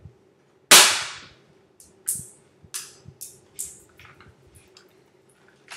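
A spring-powered airsoft SAW replica fires a single shot about three-quarters of a second in: one loud, sharp crack, the loudest sound here, followed over the next few seconds by a scatter of lighter ticks and clicks.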